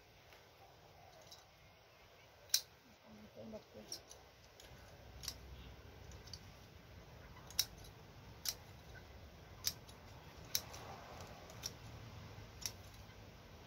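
Scissors snipping the stems of leafy greens at harvest: about ten short, sharp snips, roughly one a second.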